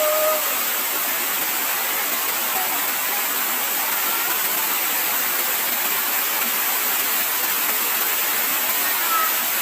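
Waterfall rushing steadily: an even, unbroken roar of falling water.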